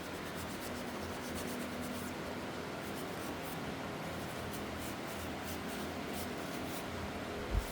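Kitchen scour pad rubbing steadily back and forth on a rusty steel hand tool, a continuous scratchy scrubbing that takes the rust off.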